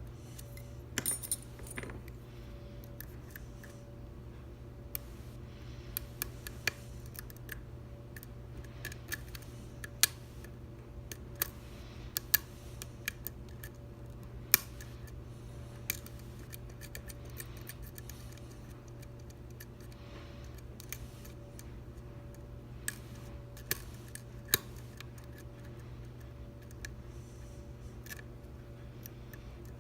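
Lock pick and tension wrench working the pins of an Assa V-10 lock cylinder: irregular sharp metallic clicks and small scrapes, some spaced well apart, others in quick clusters, over a steady low hum.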